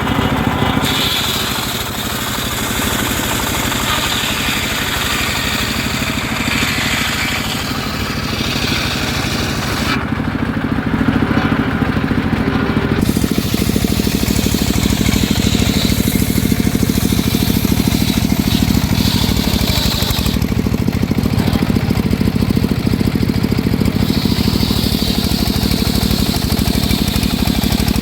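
Homemade engine-driven circular sawmill running steadily while sawing teak, its pitch and load shifting every few seconds and growing louder about ten seconds in.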